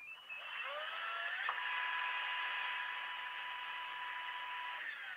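Small electric drill spinning up with a rising whine, running at a steady speed for about four seconds, then winding down near the end.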